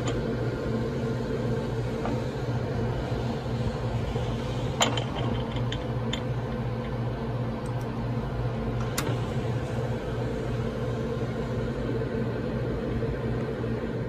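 Steady hum of running lab test equipment, with several fixed low tones. A few sharp clicks break in: the loudest about five seconds in, another near nine seconds.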